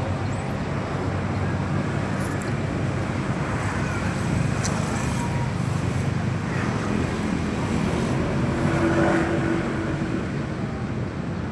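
Steady road traffic noise: engines and tyres of vehicles passing close by, with no musical horn sounding.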